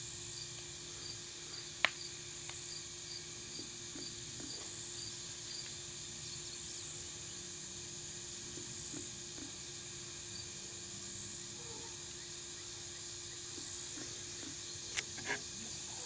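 Steady high-pitched chorus of field insects, with a quick run of evenly spaced chirps through the first five seconds. Sharp clicks sound once about two seconds in and twice near the end.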